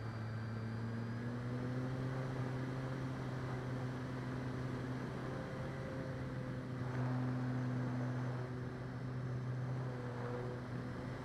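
Electric motor and propeller of an E-flite Clipped Wing Cub RC plane, heard from on board: a steady hum whose pitch shifts slightly with throttle, with a rush of wind that swells about seven seconds in.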